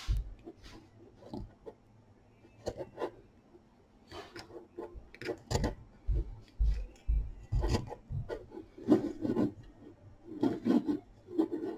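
A metal loom hook working yarn over the plastic pegs of a round wooden knitting loom, giving irregular small scrapes, clicks and taps while stitches are lifted and pulled tight.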